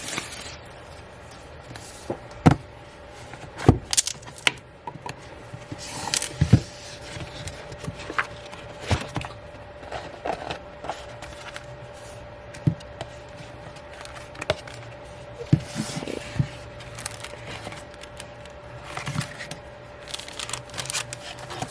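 Hands handling a K-pop album and its inserts: scattered light taps, clicks and paper and plastic rustles as pages and photo cards are handled, over a faint steady hum.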